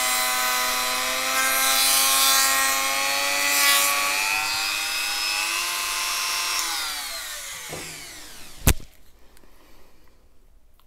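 Small handheld rotary tool running at speed with a cotton buffing wheel on a stainless steel watch case, a steady whine over the rubbing of the wheel and polishing compound on the steel. About six and a half seconds in it is switched off and the whine falls away as the wheel spins down, followed by one sharp click.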